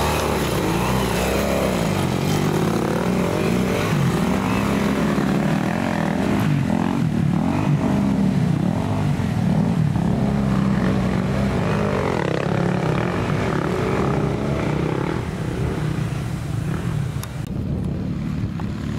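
Off-road motorcycle engines revving up and down, their pitch rising and falling as trail bikes work over a rough dirt track. The sound changes abruptly near the end.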